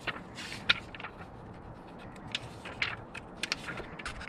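Paper pages of a car owner's manual being leafed through and handled: a run of short, crisp rustles and flicks at irregular intervals.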